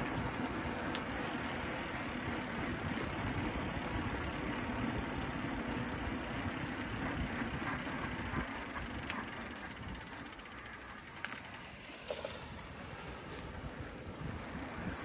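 Riding a bicycle along city streets: a steady rumble of tyres on the road with light rattles and a few clicks. It goes a little quieter after about ten seconds.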